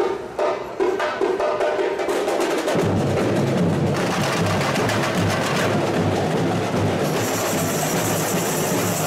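Samba school bateria playing. A sparse drum pattern is joined about three seconds in by the deep, steady beat of the surdo bass drums, and the full percussion section with tamborins and shakers fills in over the next few seconds.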